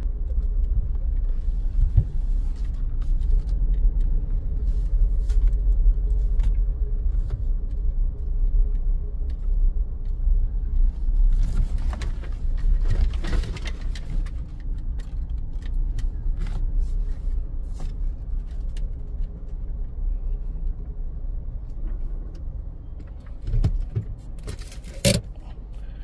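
Suzuki Jimny's engine and tyres heard from inside the cabin at low speed, a steady low rumble. Near the end come a couple of short knocks.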